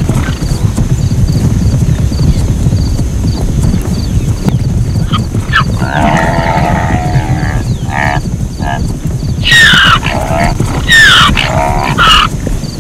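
Zebras calling: a series of braying, barking calls about halfway through, then two loud calls near the end that slide down in pitch, over a steady low rumble.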